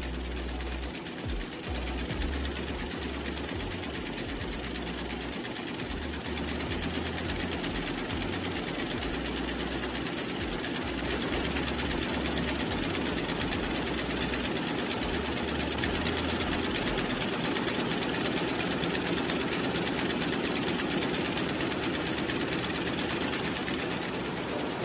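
Lässer MVD.73 schiffli embroidery machine running, a steady rapid mechanical clatter of its needle row stitching.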